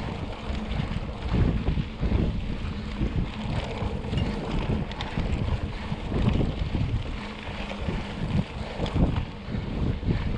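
Wind buffeting the microphone of a camera riding along on a mountain bike, with rough rumble and jolts from the tyres on a dusty dirt road.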